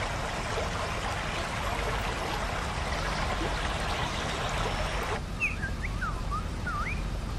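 Steady sound of running stream water, which cuts off about five seconds in. Birds then chirp in short rising and falling whistles.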